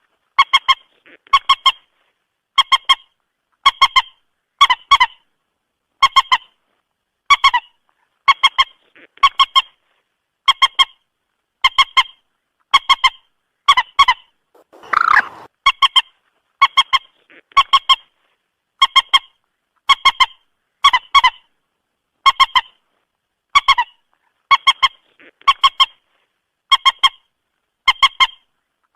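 Common moorhen calls: short, clipped honking notes in quick pairs, repeating about once a second, with one harsher, longer call about halfway.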